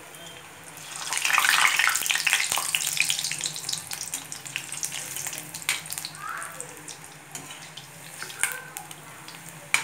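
Moong dal pakodas deep-frying in hot oil in a steel kadai: the sizzling swells loud about a second in, then settles to a steady bubbling. A few sharp clicks come from the metal skimmer against the pan.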